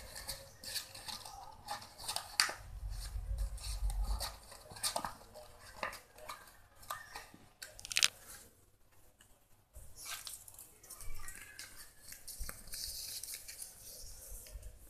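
Paper being folded and creased by hand: irregular rustles, crinkles and small sharp clicks, with a dull low thump a few seconds in and a quieter stretch about two-thirds of the way through.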